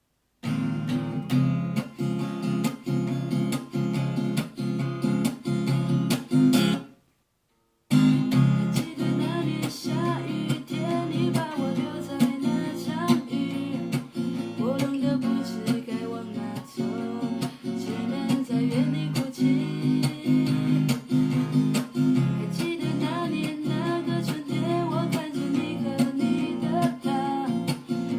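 Acoustic guitar strumming chords. It stops for about a second near seven seconds in, then resumes with a voice singing a melody over it.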